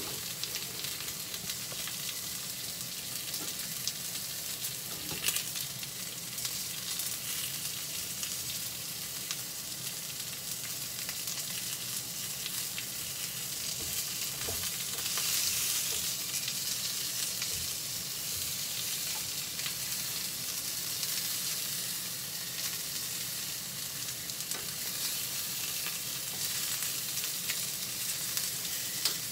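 Pork cartilage sizzling steadily as it browns in a frying pan, the sizzle swelling briefly about halfway. Occasional light clicks as the pieces are turned with wooden chopsticks against the pan.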